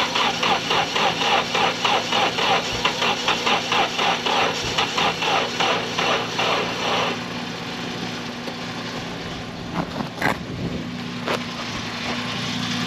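Nissan 240SX engine cranking on the starter at about four beats a second without catching, for about seven seconds before the cranking stops. The owner suspects blown fuses and a ground that is lost when the engine shakes. A steady low hum runs underneath, and there are a couple of sharp clicks after the cranking ends.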